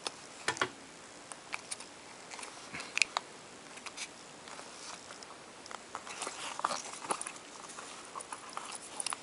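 Close handling noise from a rubber oxygen mask being worked by hand: scattered small clicks, rubs and rustles as the rubber rim is pulled and pressed around the microphone seated in it.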